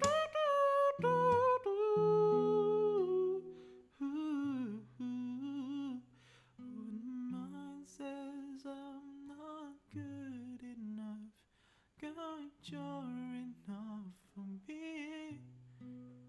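A man humming a wordless vocal melody in short phrases over a nylon-string classical guitar playing soft chords with held bass notes.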